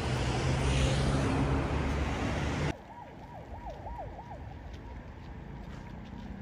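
Loud outdoor noise, then, after a sudden drop, an emergency-vehicle siren in fast yelp mode: a tone rising and falling quickly about six times over quiet street traffic.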